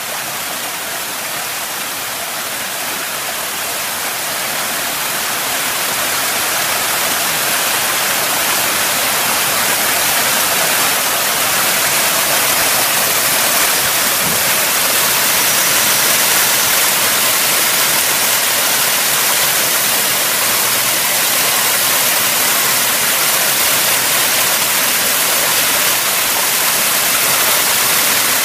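Small waterfall pouring down a rock chute into a pool: a steady rush of water, growing louder over the first ten seconds or so.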